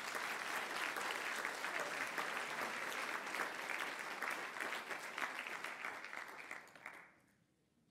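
An audience applauding, fading out about seven seconds in.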